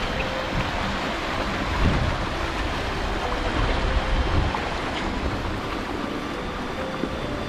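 Water rushing steadily over a low concrete weir, with wind buffeting the microphone.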